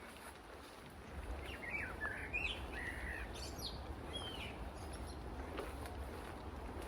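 Small birds chirping, a quick run of short rising and falling calls in the first half, over a steady low rumble of street ambience.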